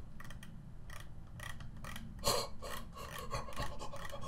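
Computer mouse scroll wheel clicking in quick, uneven runs as a long text file is scrolled, over a steady low hum, with a brief louder hiss about two seconds in.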